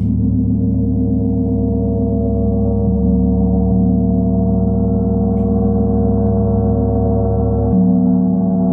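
Large Paiste gong sounding a loud, sustained wash of many overlapping tones over a deep hum, with no fading. The low tones shift near the end.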